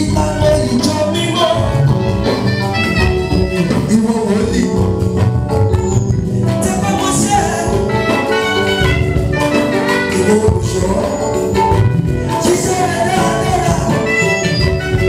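A man singing lead into a handheld microphone over amplified band music with a steady beat.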